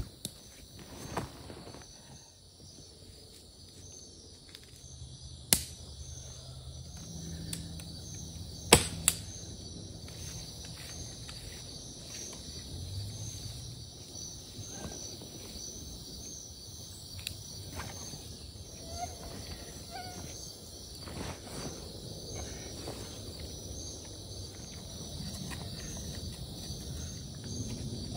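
Steady, pulsing high insect chorus, with the rustle and handling of tent fabric as a tent is unrolled and spread out. Two sharp clicks, about five and a half and nine seconds in, are the loudest sounds.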